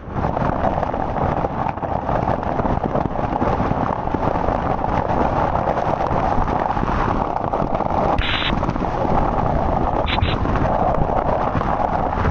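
Violent storm wind gusting hard against the microphone: a constant heavy rumble of wind noise, with a couple of brief sharper hisses late on.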